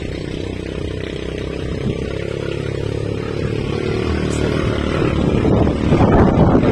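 An engine running steadily, growing louder and fuller about five seconds in.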